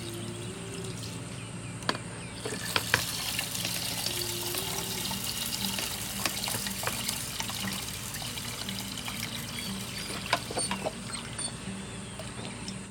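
Steady rain with water trickling and dripping, and scattered sharp drip clicks, the loudest about two to three seconds in.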